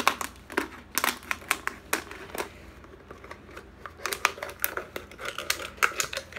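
Scissors snipping through a thin plastic water bottle: a run of sharp, irregular snips and crackles of the plastic.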